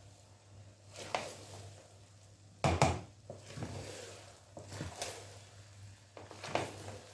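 A spoon stirring and scraping rice in a cooking pot: a few separate scrapes and knocks about a second apart, the loudest about two and a half seconds in, over a low steady hum.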